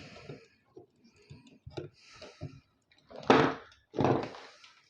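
Scattered clicks and knocks of a PC power supply being taken apart by hand, with two louder scraping noises about three and four seconds in.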